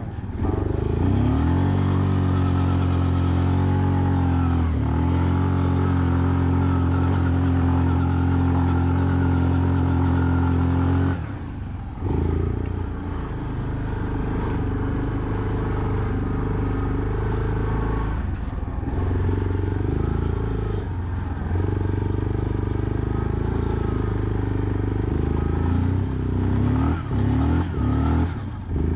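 ATV engine held at steady high revs for about eleven seconds with one brief dip, then backing off and running at varying revs, with several quick throttle-offs and blips near the end.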